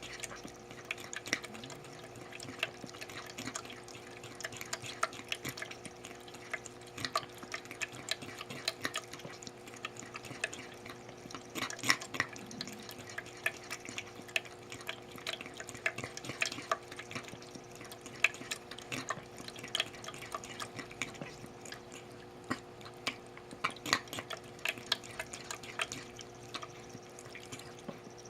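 A pet's wet mouth sounds as it laps and eats: irregular small clicks and smacks, several a second, over a steady low hum.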